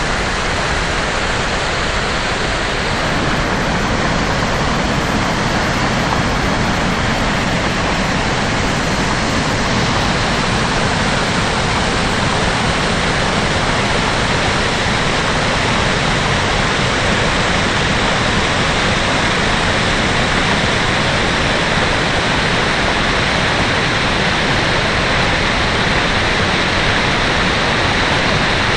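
The Rhine Falls pouring, a loud, steady rush of falling water.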